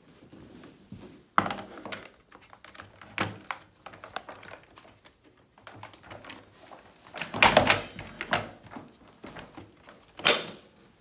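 Irregular clicks and knocks of objects being handled, with heavier thumps about a second in, about two-thirds of the way through, and near the end. No vacuum motor is running.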